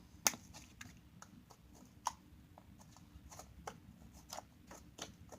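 Homemade glue-and-shaving-cream slime being squeezed and kneaded by hand, giving irregular small clicks and pops, with two sharper ones near the start and about two seconds in.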